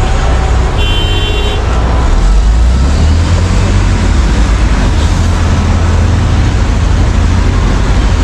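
Heavy diesel mining machinery running hard under load, with a steady deep drone that swells about two seconds in. A brief high-pitched beep sounds about a second in.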